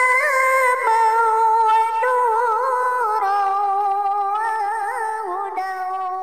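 A single high voice chanting one long, unbroken melismatic phrase. Its held notes are ornamented with small turns and slowly step down in pitch.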